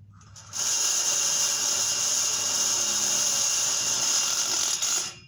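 Power drill running steadily for about four and a half seconds, spinning up about half a second in and cutting off suddenly near the end.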